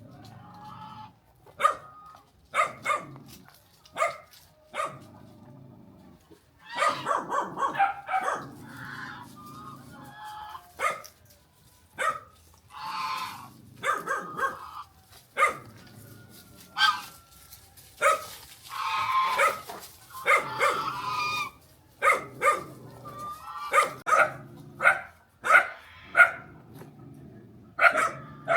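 A dog barking repeatedly: single sharp barks every second or so, broken twice by quicker runs of barking.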